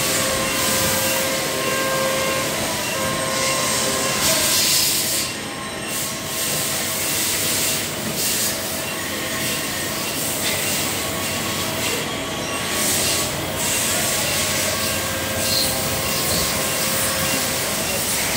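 CNC vertical machining center milling metal under flood coolant: a steady hiss of coolant spraying against the enclosure, with thin whining tones from the cut that come and go.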